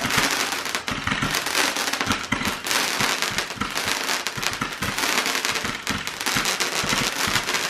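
A ground-based consumer firework spraying a column of sparks, with a rapid, continuous crackling and popping.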